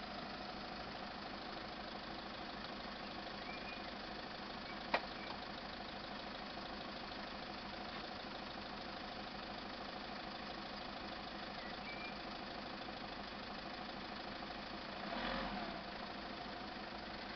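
A car engine idling steadily, with one sharp click about five seconds in.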